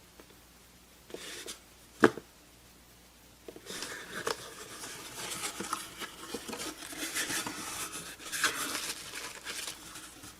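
Packing material crinkling and rustling as a shipping box is unpacked, with one sharp click about two seconds in.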